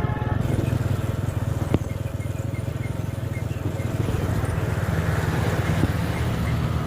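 A vehicle engine running steadily with a fast, even low beat, and a single sharp click about two seconds in.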